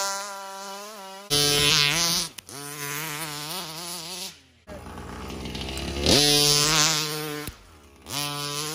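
Two-stroke gas engine of a 1/5-scale Rovan XLT RC truck running hard in several short cut-together bursts, its pitch wavering and sweeping up sharply as the throttle is blipped, about two-thirds of the way in and again near the end.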